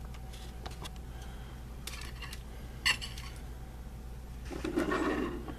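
A hand handling a plastic doll on a shelf: a few light clicks and a sharper tap about three seconds in, then a brief rustle near the end.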